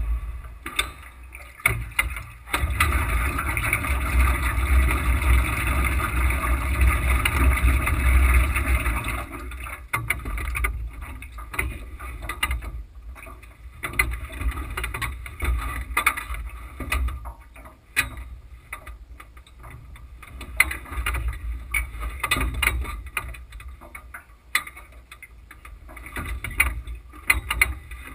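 Wind gusting over the microphone: a low rumbling rush, strong for the first nine seconds, then fainter and patchy, with scattered ticks and rustles.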